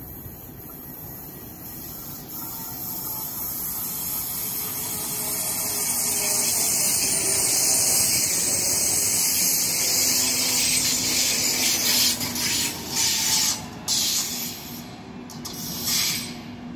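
A train approaching and passing close by on the station tracks: a rising hiss of wheels on rail, loudest about six seconds in. A steady low hum joins later, and near the end the sound rises and falls sharply several times as the train goes by.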